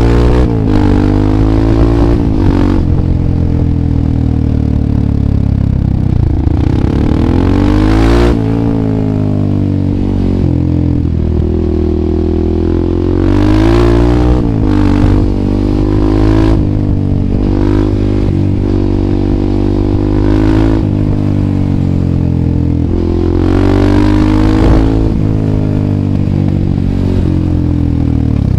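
Husqvarna 630 supermoto's single-cylinder engine through FF By Fresco slip-on exhausts with the dB killer removed, running under way: the revs rise and fall again and again as it accelerates and slows. A few short bursts of noise break through the engine sound.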